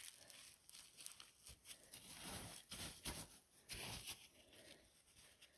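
Faint, irregular rustling and crackling of forest-floor litter being disturbed, with a few short crackles.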